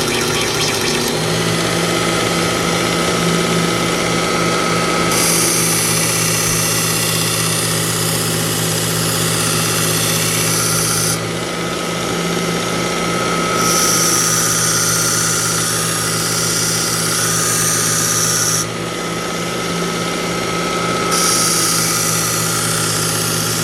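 Belt grinder running at turned-down speed with a leather strop belt loaded with polishing compound, its motor giving a steady hum and whine. A knife edge is pressed to the strop three times, each pass a hiss lasting several seconds.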